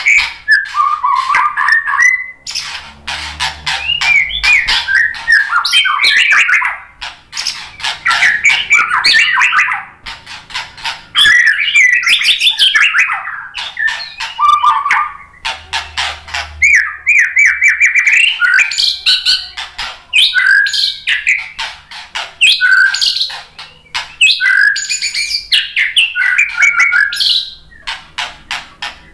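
Male white-rumped shama singing a long, loud, varied song: rapid runs of clicks and rattles mixed with whistled phrases, broken by a few short pauses.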